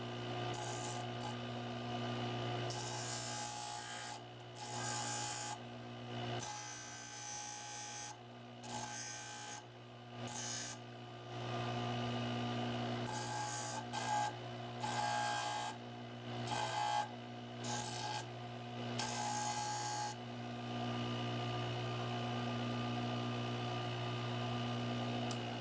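A small power tool's motor running steadily with a constant hum, and repeated stretches of abrasive scraping, each a second or two long, as it is worked against a workpiece.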